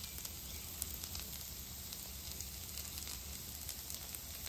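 Shredded hash browns frying in beef tallow on a flat-top griddle: a faint, steady sizzle with a few light crackles.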